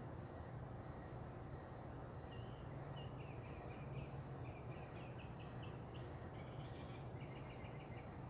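Faint outdoor dawn ambience: a high insect pulse repeating a little under twice a second, a songbird giving a rapid series of short chirps through the middle, and a steady low hum underneath.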